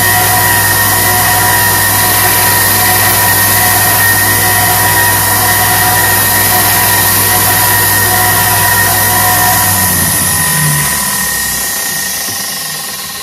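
2x42-inch belt sander running steadily with a hum and a high hiss while a VG10 knife edge is sharpened on its fine-grit belt. About ten seconds in the motor is switched off and the belt winds down, fading away.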